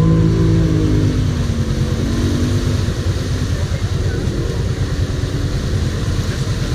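ATV engine idling close by with a steady, pulsing rumble; in the first few seconds a rev falls back down to idle.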